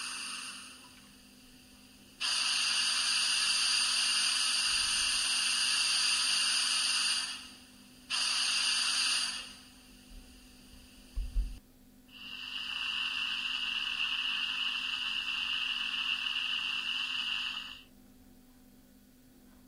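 Digital sound decoder of a Jouef H0 model of the SNCF 140 C steam locomotive playing steam-hiss effects through its small loudspeaker while the model stands: first the auxiliary blower, then the blowdown. The hisses come in separate spells that start and stop abruptly; the last and longest carries a steady high whistling tone.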